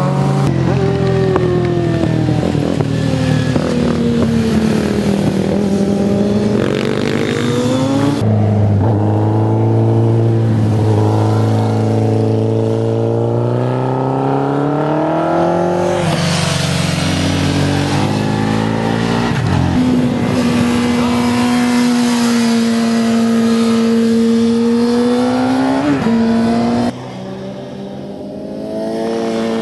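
Motorcycle engines revving in several short passes, the pitch falling and rising again as each bike slows into a bend and accelerates out. The passes break off abruptly from one to the next, and the last is quieter.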